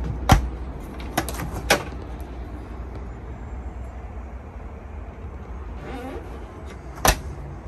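Caravan three-way fridge door being opened and shut. There is a sharp latch click as it opens, a few lighter clicks a second or so later, and a sharp click near the end as the door is pushed closed, over a steady low hum.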